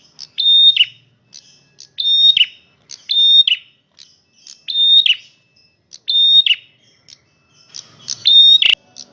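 Male prenjak merah singing loudly, repeating one phrase about once a second: a high note held briefly, then dropping sharply, with short high chips in between. A sharp click near the end.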